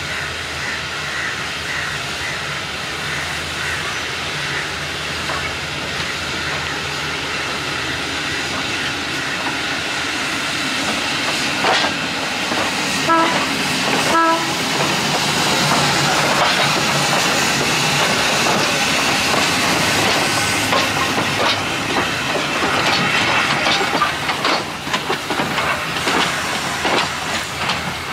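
Sri Lanka Railways Class B2b steam locomotive moving slowly through a rail yard: a steady steam hiss that grows louder as it passes, two brief whistle toots about halfway through, and its wheels clicking over rail joints and points near the end.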